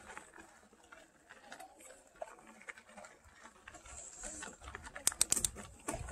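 Mountain bike rolling down a gravel track: tyres crunching over loose stones, with irregular clicks and rattles and a cluster of louder sharp clicks about five seconds in.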